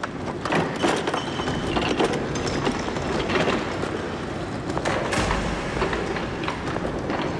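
Room-service cart rattling and clattering as it is wheeled along on its castors, with a low rumble about five seconds in.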